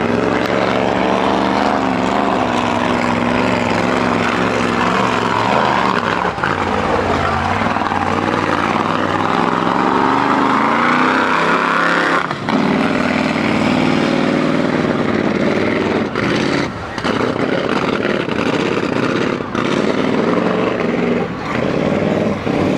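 Mud truck's engine running hard at full throttle through a mud pit, climbing in pitch for about twelve seconds. It then drops suddenly and keeps running at high revs, dipping briefly a few times near the end.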